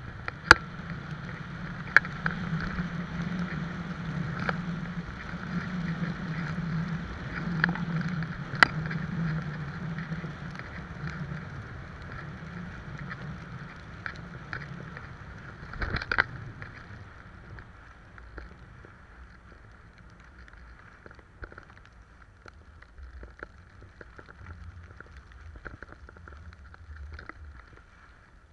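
Sliding over groomed, packed snow on a downhill run: a steady scraping hiss with wind on the microphone and a few sharp knocks. It grows quieter after about sixteen seconds.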